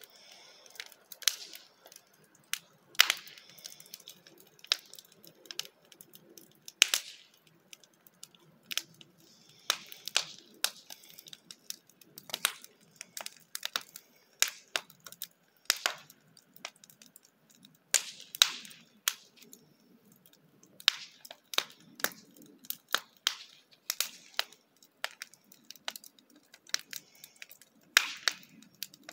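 Wood fire burning in a mesh-screened fire pit, crackling with irregular sharp pops and snaps over a soft low rush of flame.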